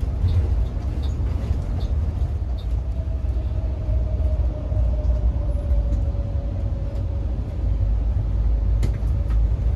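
Cabin noise of a moving rear-engined Mercedes-Benz O500R 1836 coach: a steady low rumble of engine and road, with a faint whine that slowly drops in pitch. A few light rattles near the end.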